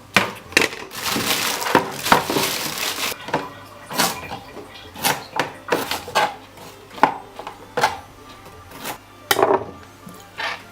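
Salad being put together by hand: irregular knocks and clatter of containers and utensils, with a rustling stretch about one to three seconds in.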